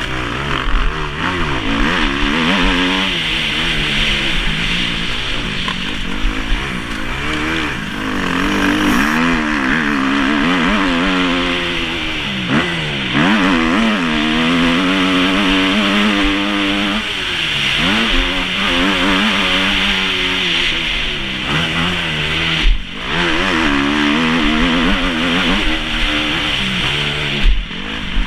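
Kawasaki KX250F four-stroke single-cylinder motocross engine revving hard and dropping back over and over as the bike is ridden around the track, the revs rising and falling every second or two, with two brief drops in the engine note near the end.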